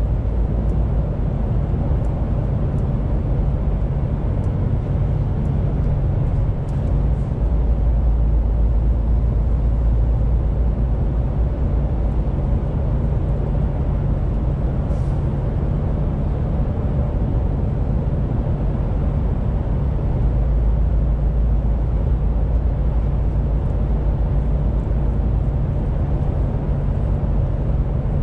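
MAN TGX 18.470 truck cruising, heard inside the cab: a steady low drone of its six-cylinder diesel mixed with tyre and road noise.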